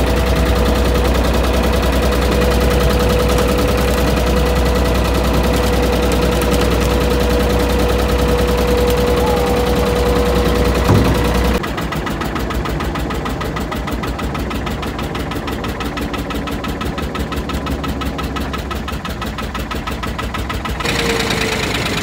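Work boat's engine running steadily as the boat moves slowly under tow load. Its sound changes abruptly about halfway through to a quieter, fast-pulsing running, and changes again near the end.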